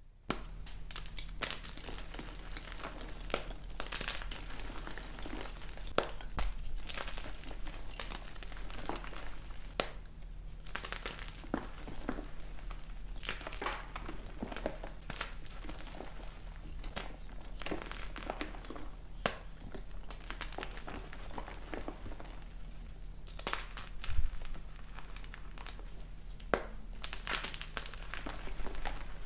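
Fresh white gym chalk blocks being crushed and squeezed by hand: a soft, powdery crumbling with frequent sharp cracks and snaps as the blocks break apart into chunks and powder.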